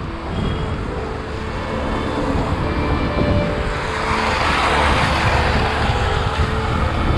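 Road traffic heard from a moving bicycle, with wind rumbling on the camera microphone; a hissing swell of a passing vehicle rises from about four seconds in.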